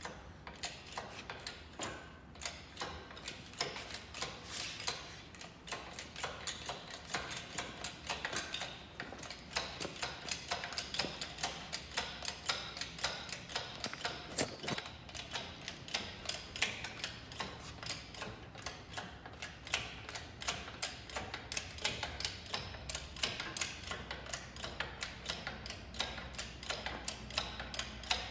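Fast, steady run of sharp ticking clicks, several a second, over a faint low hum.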